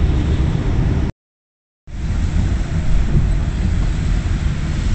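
Steady low rumble and hiss of a vehicle cabin in heavy rain. It drops out to dead silence for under a second about a second in, then resumes.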